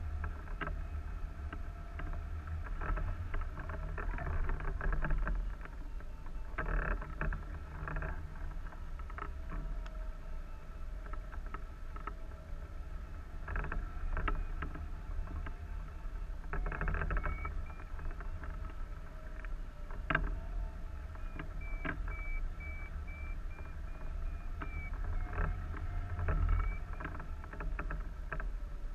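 Wind rushing over the camera microphone on a hang glider in flight: a steady low rumble with frequent short rattles and flutters from the sail and frame.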